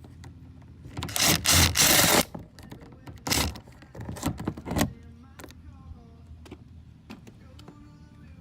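Rubbing, scraping noise from work on a plastic car door trim panel, in three bursts (the first and longest from about one to two seconds in) with scattered light clicks between them.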